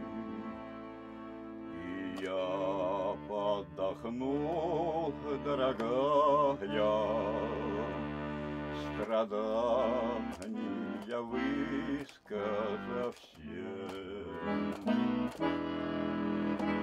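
Button accordion (bayan) playing a slow melody over held chords. The melody notes waver in pitch in the first half, and the playing breaks off briefly a few times later on.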